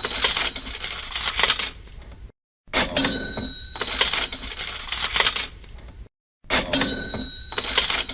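Cash register sound effect on a loop: each cycle starts with a bell ring and a clatter, then coins jingle for about two seconds before a brief silence. A new cycle begins about a third of the way in and again about three-quarters of the way through.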